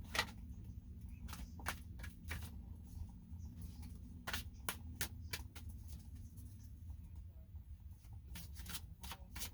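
Tarot cards being shuffled and handled: an uneven series of short card clicks and snaps over a low steady hum.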